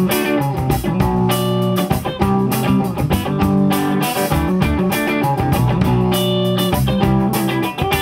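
Live band playing an instrumental passage with no singing: electric guitar, electric bass and drum kit together in a steady blues-rock groove.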